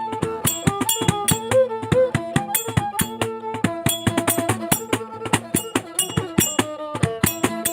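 Thai folk fiddle (so) playing a gliding melody over a steady drone, with percussion hits keeping a beat of about three a second.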